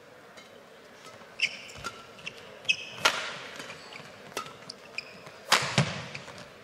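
Badminton rally: racket strings striking the shuttlecock in sharp cracks, the hardest about three and five and a half seconds in, with shoes squeaking briefly on the court mat between shots.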